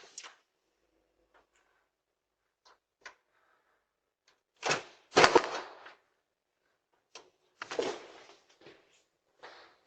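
A door being tried and shaken by someone trying to get in, with the handle and frame rattling: a few faint clicks, then loud rattling knocks about five seconds in, another cluster around eight seconds and more near the end.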